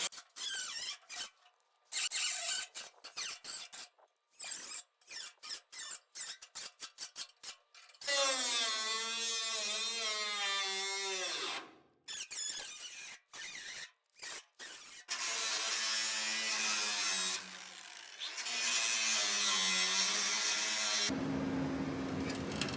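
Handheld power tool run in short trigger pulses, then in two longer steady runs of a few seconds each, the first slowing down as it stops, as it works a bolt loose.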